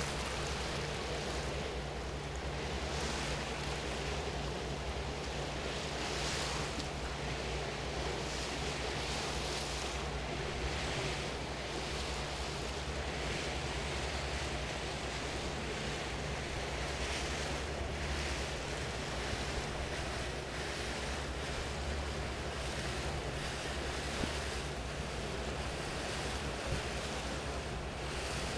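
Tour paddle boat under way: a steady low engine drone under a constant rush of water along the hull, with wind buffeting the microphone in gusts.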